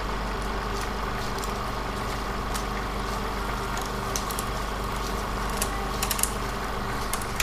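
Film projector running: a steady whirring hum with scattered clicks and crackle.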